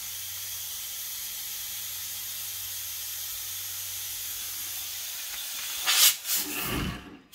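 Compressed air hissing steadily through an air hose at low regulator pressure, about 1 bar. About six seconds in it gives a louder, brief burst of hiss, then fades out.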